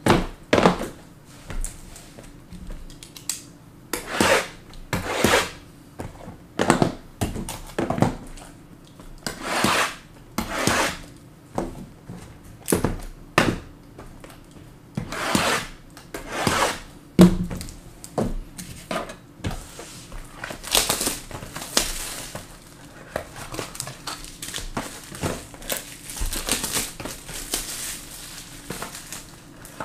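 Plastic wrapping on trading card boxes being torn and crinkled by hand. It comes in short separate rustles for most of the stretch, then turns into denser, continuous crinkling in the last third.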